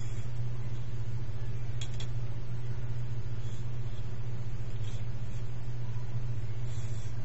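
A steady low hum with no change in level, with a few faint light clicks, about two seconds in and again about five seconds in.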